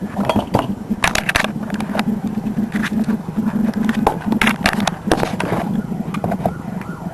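Clicking and scraping of an airsoft electric pistol's gearbox and frame parts as the gearbox is worked down and out through the grip, in clusters about a second in and again around the fifth second. A steady low hum runs under it.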